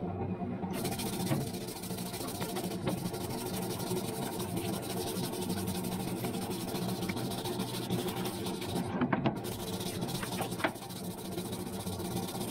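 Parts washer pump running steadily, with solvent pouring from its nozzle into the tub, while a brush scrubs a greasy adjustable wrench in the fluid, giving short scraping strokes.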